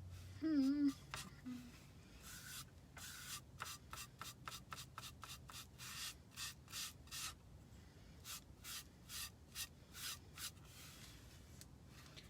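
A paintbrush brushing paint onto a craft pumpkin in short scratchy strokes, about two a second. A brief hummed voice sound just under a second in is the loudest moment.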